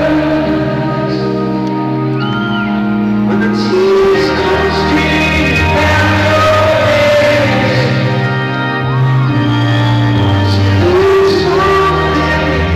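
Live rock band music with a sung vocal line over held, sustained chords, played in a large hall.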